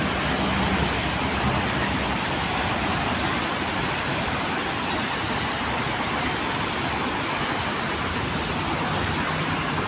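Steady street traffic noise: an even rumble and hiss of passing vehicles with a faint engine hum underneath.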